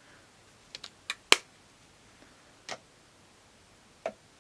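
A handful of short, sharp clicks and taps from a small plastic makeup palette and its packaging being handled, the loudest about a second in, like a compact lid snapping.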